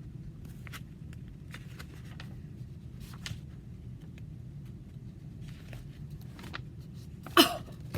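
Faint rustles and light taps of a picture book being handled, over a steady low hum. A short loud sound comes near the end.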